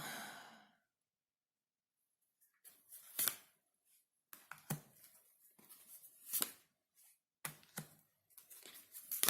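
Tarot cards being handled and shuffled by hand: irregular crisp card snaps and papery rustles, starting about two and a half seconds in after a silent gap.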